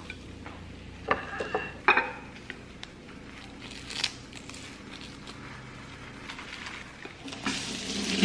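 Wooden chopsticks clicking against a ceramic plate and roasted seaweed crinkling as rice is wrapped in it. There are a few light, ringing clinks about a second in and one more near the middle. A frying sizzle rises near the end.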